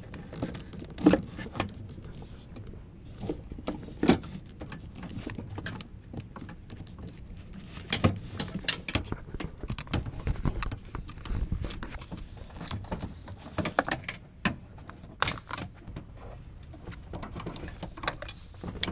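Irregular clicks, knocks and rattles of hands handling a power steering hose and its metal fittings in a car's engine bay. The sharpest knocks come about a second in, at four seconds, at eight seconds and near fifteen seconds.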